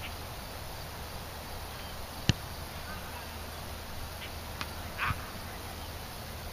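Steady open-air background noise with a single sharp knock about two seconds in, the loudest sound, and a few faint high chirps later on.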